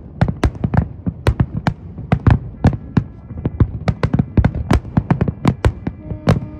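Fireworks display: a rapid, irregular run of sharp bangs from bursting shells, several a second.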